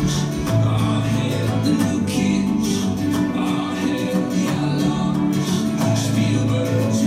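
Music with a steady beat and sustained low bass notes.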